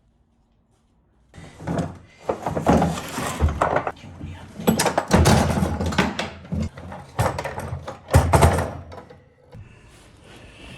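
Core drill boring into a wall: loud, irregular grinding and knocking that starts about a second in, with hard knocks as the bit bites, easing off near the end.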